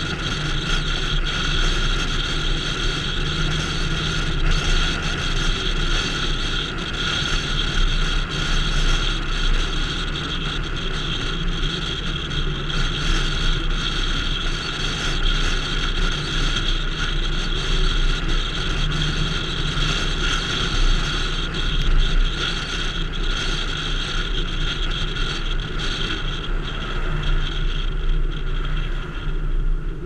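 Car driving along a road, heard from inside: a steady drone of engine and tyre noise.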